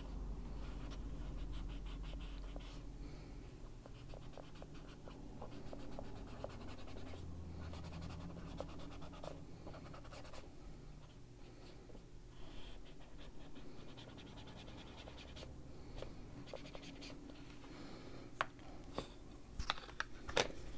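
Mini detail ink blending tool rubbing ink onto a colouring-book page: faint, steady scratchy scrubbing on paper, with a few sharper clicks near the end.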